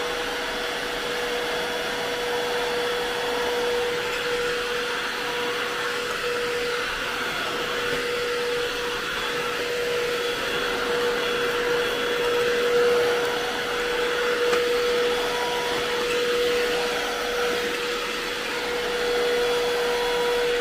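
ILIFE cordless stick vacuum running while it is pushed over a tiled floor: a steady motor whine over the rush of air.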